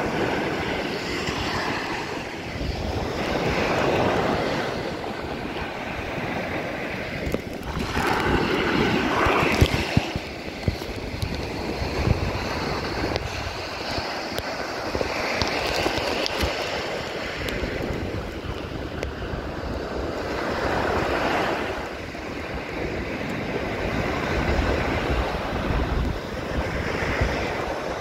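Ocean surf washing up the beach in swells every few seconds, with wind buffeting the microphone as a low rumble.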